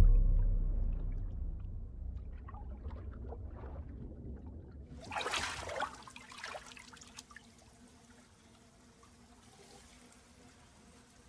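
Muffled underwater rumble that opens with a deep thud and slowly fades. About five seconds in, a short burst of splashing water as a head breaks the pool surface, then faint trickling water over a low steady hum.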